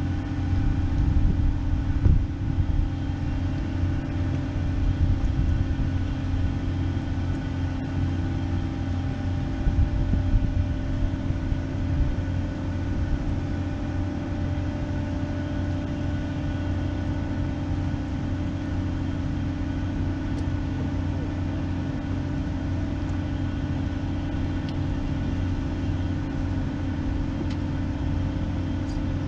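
Steady drone of large diesel machinery on the moored vessels, a deep hum with several fixed tones above it. Wind rumbles on the microphone in gusts during the first dozen seconds.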